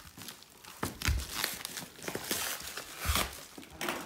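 Plastic packaging wrap crinkling and tearing as a car's front bumper lip is unwrapped, with irregular rustles and two dull thumps, about a second in and near three seconds.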